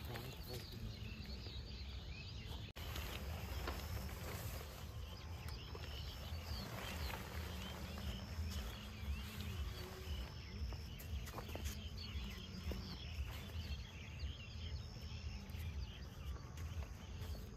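Outdoor ambience of insects chirping and birds calling. Short high chirps repeat every second or two over a steady low rumble.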